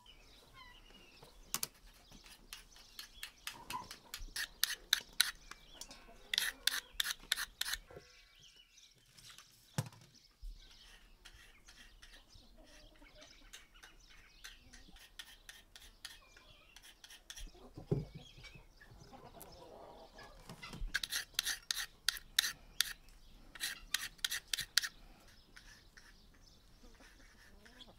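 Quick sharp taps or clicks, several a second, coming in bursts that cluster in two stretches, with faint bird chirps between them.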